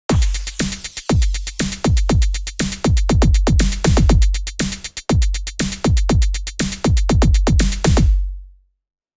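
Electronic dance music with a fast drum-machine beat over a heavy bass line, fading out near the end.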